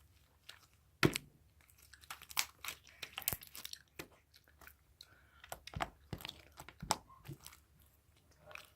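Hands squishing and poking a sticky slime with beads buried in it, making irregular soft clicks and crackles, the sharpest about a second in.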